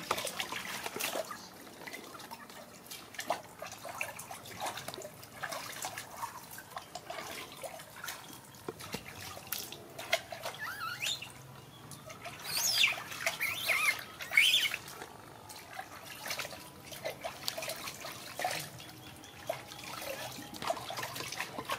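Water splashing and dripping in a plastic tub as a baby macaque is washed with handfuls of water. A few high-pitched squeals from the baby monkey stand out about halfway through.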